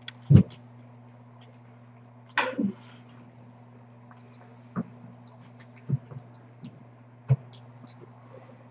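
Cat eating wet food from a stainless steel bowl: soft wet clicks of chewing and licking, with a few louder knocks, the loudest about a third of a second in. A steady low hum runs underneath.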